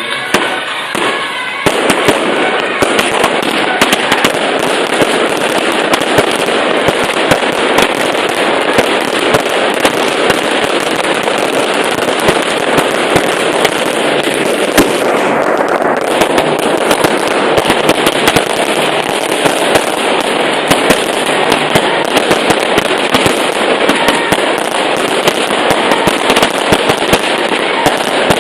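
Fireworks and firecrackers going off in a dense, continuous barrage of rapid cracks and bangs, starting about two seconds in.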